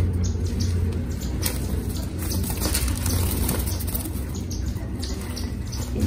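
A white cloth bag rustling as it is shaken and handled to tip budgies out of it, with scattered short rustles over a steady low rumble.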